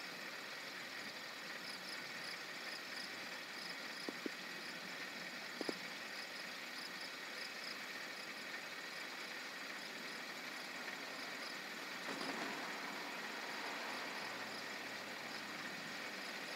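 Summer night ambience: a steady hiss with insects chirping in a regular high pulse. There are a few faint clicks about four to six seconds in, and the background swells slightly about twelve seconds in.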